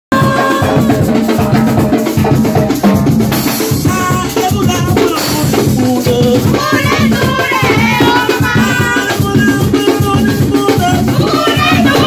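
Live Garifuna drumming: hand drums beaten in a fast rhythm with shakers rattling, and voices singing over them from about halfway through.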